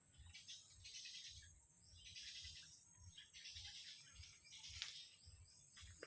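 Many small birds chirping faintly over a steady high-pitched hiss, with one sharp click a little before the end.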